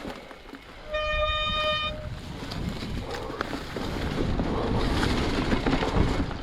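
Mountain bike riding over rough, rocky trail: tyre and ground noise with wind on the microphone and scattered knocks and rattles. About a second in, a steady beep-like tone sounds for just under a second and stops abruptly.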